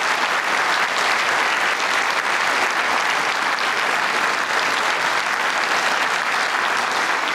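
A large audience applauding: dense, steady clapping.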